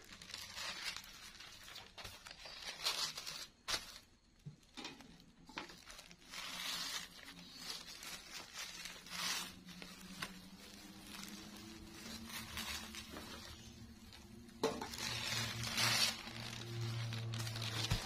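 Clothes iron sliding and scraping over layered thin plastic sheets, with the plastic crinkling as a hand smooths it; irregular swishes about every second or so. A low steady hum comes up in the background near the end.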